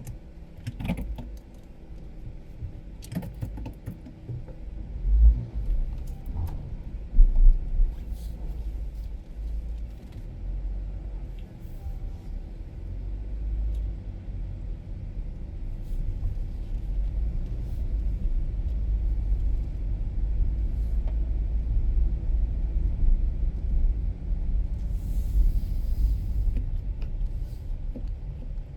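Car driving slowly through an underground car park: a low, steady rumble from the car, with a few sharp knocks in the first several seconds, growing a little louder and steadier about halfway through.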